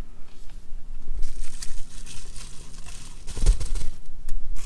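Plastic bubble-wrap bag crinkling and rustling as it is handled and opened, with a soft bump about three and a half seconds in.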